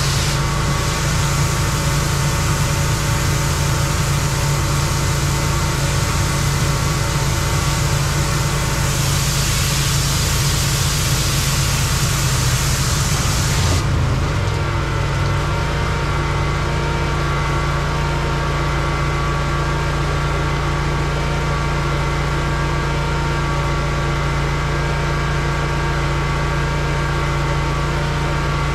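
Pressure washer engine running steadily, with the hiss of the high-pressure water jet spraying through the first half; the spray cuts off suddenly about halfway through and the engine runs on.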